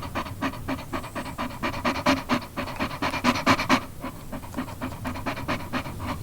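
Dog panting rapidly, about four to five quick breaths a second, louder for the first few seconds and then softer.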